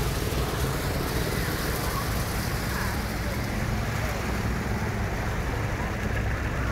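Steady rushing outdoor background noise: wind on the microphone mixed with distant road traffic.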